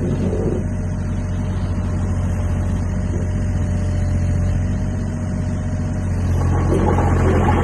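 Kobelco SK28SR mini excavator's diesel engine running steadily, growing louder with added clatter about six seconds in.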